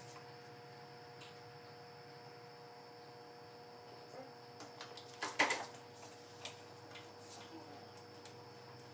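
Light clicks and clinks of hand work in a truck's engine bay, the loudest a short clatter a little past halfway, over a steady electrical hum.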